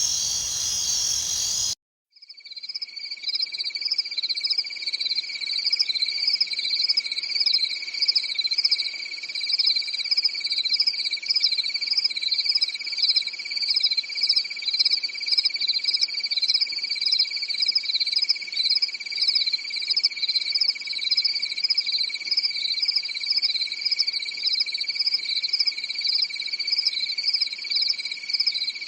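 Crickets chirping: one cricket recording cuts off about two seconds in, and after a short silence another starts, a steady high trill with rapid, pulsing chirps above it.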